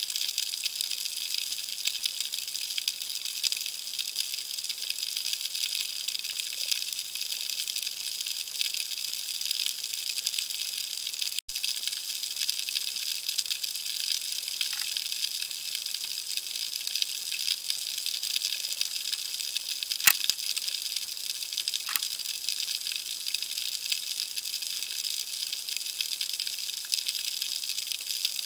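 Underwater sea ambience: a dense, steady crackle and hiss of tiny clicks, typical of snapping shrimp on a reef. A couple of sharper, louder clicks stand out about two-thirds of the way through, and the sound cuts out for an instant near the middle.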